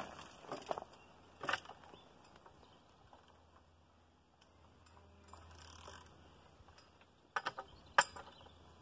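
Tree jack lever being worked against a large log: scattered metal clicks and knocks from its mechanism, a few in the first two seconds, then a quiet spell, then a quick run of clicks ending in a sharp loud one about eight seconds in.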